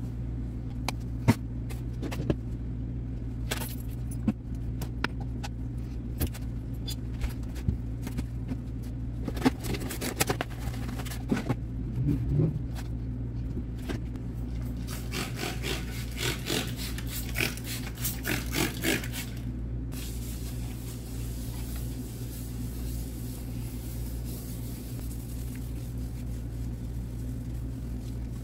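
Household items being picked up and set down on a granite kitchen countertop: scattered knocks and clatters, with a busier run of them a little past the middle, over a steady low hum. About two-thirds of the way in the knocks stop and an even hiss takes over.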